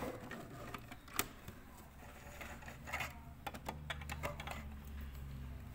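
Scattered light mechanical clicks and rattles from handling a domestic sewing machine once its stitching has stopped, with a run of quick clicks near the middle, over a faint low hum.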